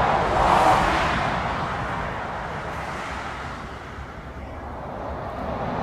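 Jet airliner engines: a broad rushing noise that swells to its loudest about half a second in, fades over the next few seconds, then grows again near the end.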